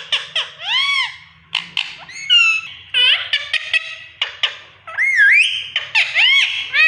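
Parrot vocalising: a quick run of arching whistled notes, squawks and sharp clicks, several a second, with a longer gliding whistle about five seconds in.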